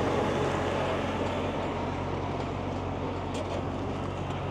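Heavy diesel engine of a wheel loader running close by, a steady low drone that fades slightly as the machine moves off.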